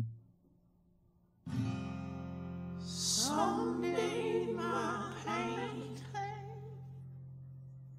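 Music: a short low note, a brief pause, then a held chord comes in about a second and a half in. A voice sings over the chord for a few seconds, and the chord then rings on and slowly fades.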